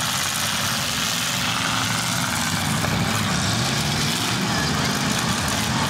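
Demolition derby car engines running together in the arena, a steady deep rumble over a wash of noise.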